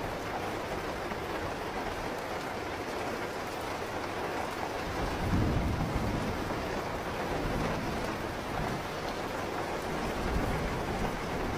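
Steady rain falling, with a low rumble of thunder swelling about halfway through.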